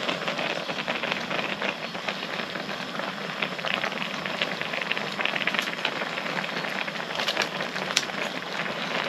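A pot of broth boiling on the stove: a steady, dense crackling bubble, with one sharp click near the end.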